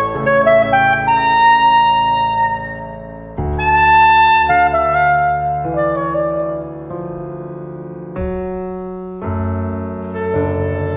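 Piano and saxophone duo playing a slow jazz piece: piano chords struck every few seconds and left to ring, under a melody that steps upward, then falls away.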